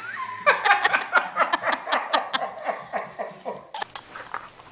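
A person laughing: a quick, even run of short laughs that stops near the end.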